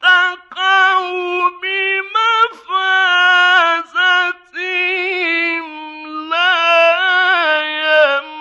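A male Quran reciter's voice chanting in the melodic Egyptian mujawwad style. It comes in a run of phrases separated by short breaths, with long held notes and ornamental turns, and sinks slightly in pitch near the end.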